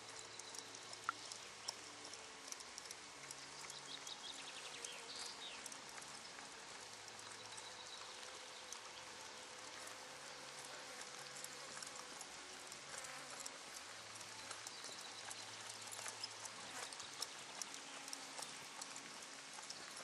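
Faint, soft hoofbeats of a horse loping on arena sand, over a steady outdoor hiss.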